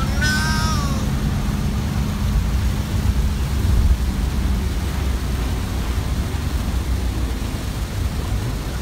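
Steady rumble of engine and tyres on a wet highway, heard from inside a moving passenger van in rain. A brief warbling tone sounds right at the start.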